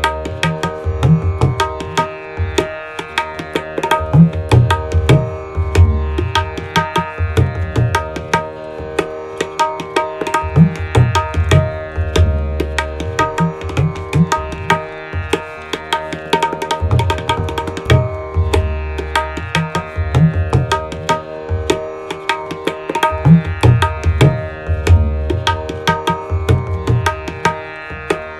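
Tabla playing Addha taal, the 16-beat cycle, in medium tempo as a looped practice accompaniment. Quick strokes on the treble drum are joined by deep bass-drum strokes that swell and bend in pitch, with the same phrase coming round every few seconds. A steady drone, tuned to D#, sounds under it throughout.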